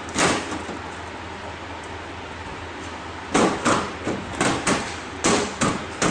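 Side cover of a desktop computer case being fitted back onto the case: a single knock, then a quick string of clacks and knocks as the panel is pushed into place.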